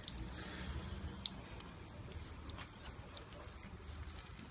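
Water dripping in scattered single drops, over a low steady rumble.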